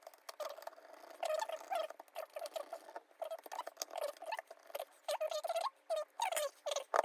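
Rapid, high-pitched chattering squeaks in short bursts, several a second, bending up and down in pitch like speech played back at high speed.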